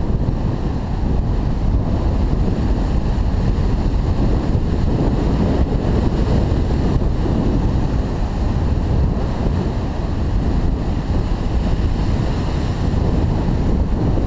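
Sea surf breaking on a rocky shore, mixed with wind buffeting the microphone; a steady noise without any distinct events.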